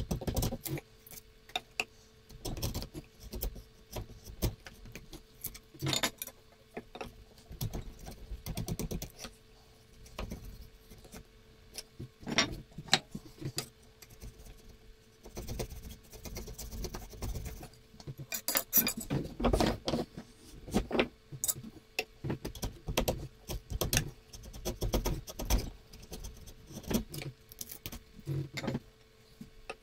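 Steel chisel paring thin shavings from the inside of a wooden plane body, in a series of short, irregular scraping strokes and clicks, over a faint steady hum.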